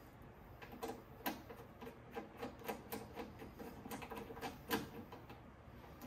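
Faint, irregular clicks and scrapes, about two or three a second, the sharpest near the end: hand work on the metal casing of an A&D GX-7100LTD cassette deck as its top cover is fitted and screwed down.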